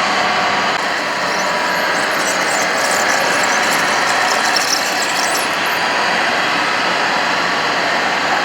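Small electric drive motors and gearboxes of radio-controlled construction models whining steadily, with a gritty crackling for a few seconds in the middle.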